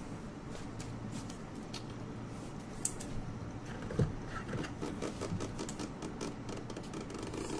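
Trading cards being handled by hand: light rustles and small taps, with a sharper click about four seconds in and a run of quick little ticks after it, over a faint steady hum.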